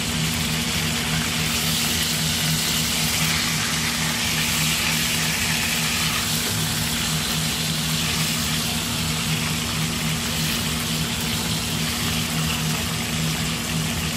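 Oil sizzling steadily around a whole chicken frying in a pan, with a steady low hum underneath.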